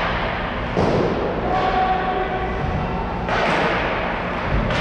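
Ice hockey play ringing through an arena: three sharp, echoing thuds about a second in, just past three seconds and at the very end, over a steady hubbub of the rink.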